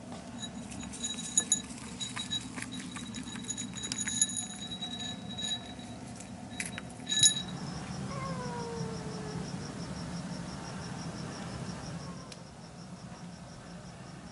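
A cat meows once, a falling call lasting about a second and a half, a little past halfway through. Before it come light metallic jingles and clicks, and from around the meow onward a faint, high chirp repeats evenly, about five times a second.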